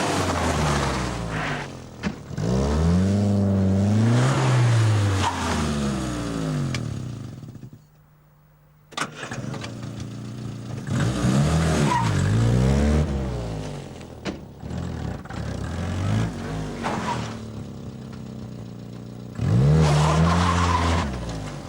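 A 1985 Austin Mini's four-cylinder A-series engine revving up and down again and again as the car drives off, turns and comes back, the pitch climbing and dropping with gear changes. About eight seconds in, the sound drops out for about a second and returns with a sharp click.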